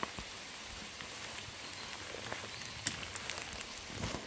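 Steady rain falling on forest leaves, with scattered drips and a few light clicks.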